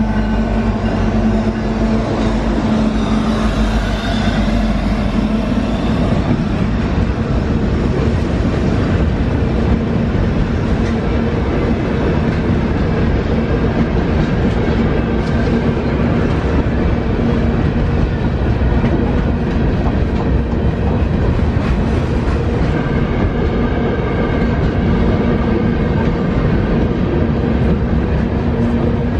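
A CN freight train of covered hopper cars passing close by, its wheels rumbling steadily on the rails with clickety-clack. Over the first few seconds the EMD SD70M-2 locomotives' diesel engines are heard as they go past, then fade.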